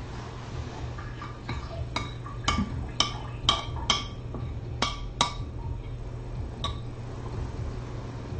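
A metal spoon clinking against a dish, about ten sharp ringing taps bunched in the middle, over a steady low hum.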